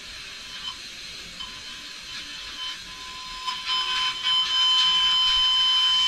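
A loudspeaker driven by a small homemade electronics circuit gives a steady, high-pitched electronic whine over hiss while an audio jack plug is being connected. The hiss grows louder about four seconds in.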